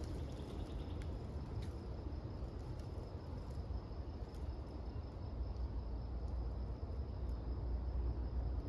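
Quiet outdoor ambience: a faint, steady, high-pitched insect-like trill over a low rumble, with a few faint ticks.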